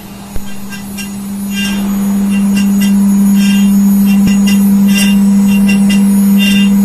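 Engraving and milling machine cutting a metal block: the spindle runs with a steady low hum that swells over the first two seconds or so. Short high-pitched chirps from the cutter on the metal recur irregularly over it, with a single knock near the start.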